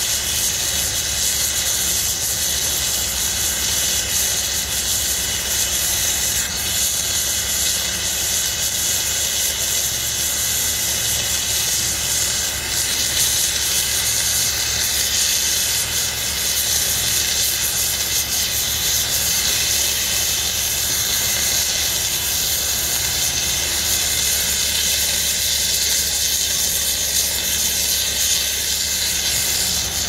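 Long-handled gas cutting torch hissing steadily as its flame and oxygen jet cut through a steel sheet pile, with a low steady hum underneath.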